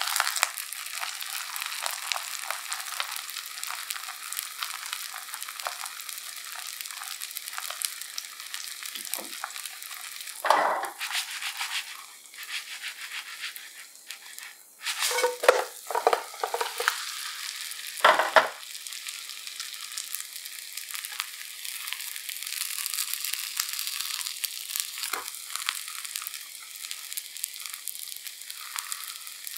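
Kimchi pancake batter sizzling steadily in oil in a nonstick frying pan. Midway there are a few louder knocks and scrapes as the pan is handled.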